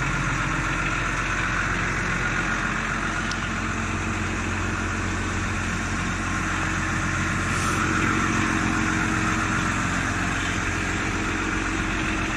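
Cat DP150 diesel forklift's engine idling steadily.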